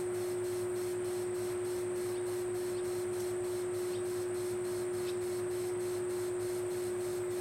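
A steady single-pitched hum, with a faint high insect chirring pulsing about five times a second behind it.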